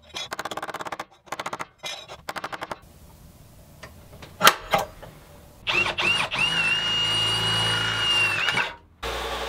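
Rapid light hammer taps on a small cut piece of sheet steel, stopping after about three seconds. Then two sharp strikes on a center punch, and a cordless drill running with a steady high whine as it bores through the sheet metal for about three seconds. A belt grinder starts running at the very end.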